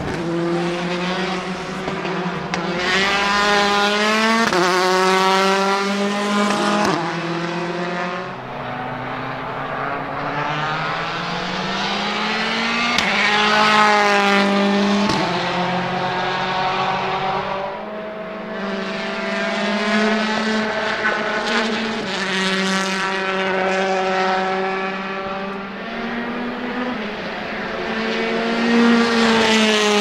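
Rally cars' turbocharged four-cylinder engines accelerating on track, several cars in turn. Each engine revs up through the gears, its pitch climbing and then dropping sharply at each upshift, and falls back as the car lifts off.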